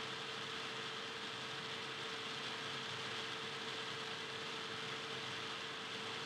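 Steady hiss with a constant mid-pitched hum tone underneath, unchanging throughout, with no voices, whistles or ball bounces.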